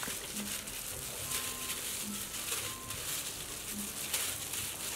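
Hands tossing and squeezing chopped cabbage coated in chili paste in a metal basin: wet squelching and leafy rustling in irregular strokes. A faint low call repeats in the background about every second and a half.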